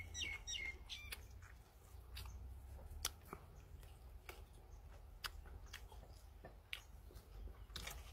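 Faint eating sounds: chewing with scattered sharp mouth clicks and lip smacks, one every second or two. A bird chirps rapidly in the first second.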